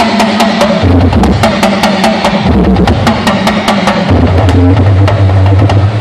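Yoruba hourglass talking drum struck with a curved stick in a quick run of sharp strokes, several a second, its low note shifting in pitch as the player squeezes the tension cords under his arm.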